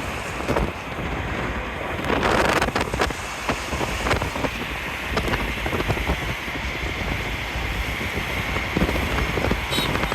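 Wind buffeting the microphone over a steady low rumble, with scattered knocks.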